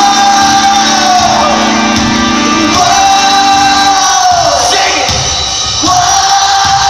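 Pop-punk band playing live in an arena, heard loud on a phone recording, with long held sung notes, each falling off at its end, coming about every three seconds over the drums and guitars.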